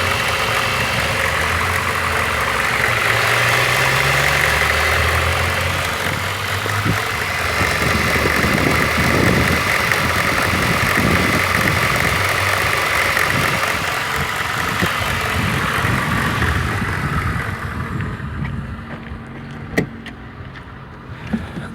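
VAZ 2114 1.5 8-valve engine idling cold with a crackling noise from around the cylinder head, a noise that goes away once the engine warms up. It gets quieter and duller near the end, with a single sharp click shortly before the end.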